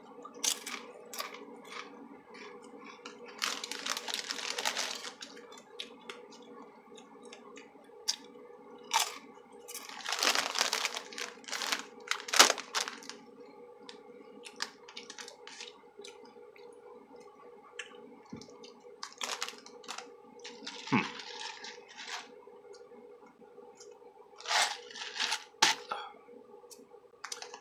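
Close-up crunching and chewing of Doritos white cheddar corn tortilla chips. Irregular crisp crunches come with a few longer, louder crackly bursts, about a third of the way in and again near the middle.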